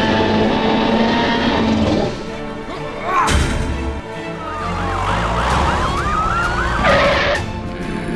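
Police siren sounding over background music. About five seconds in, the siren turns to a fast, repeating yelp.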